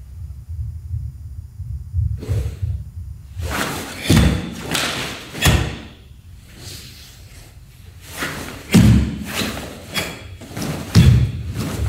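Bare feet stepping and stamping on a wooden floor, with the swish and snap of a cotton karate gi as horse-stance blocks and strikes of the Tekki Shodan kata are thrown. The thuds come in clusters with quiet pauses between.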